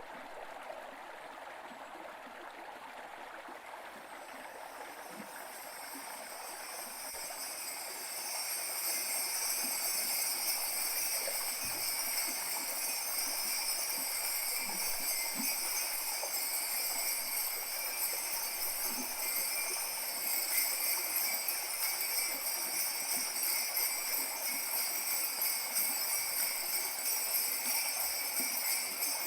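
Kaskawillas, Mapuche bronze bells, shaken continuously in a dense, steady jingle that imitates the sound of falling water. The jingling swells in over the first several seconds and then holds steady.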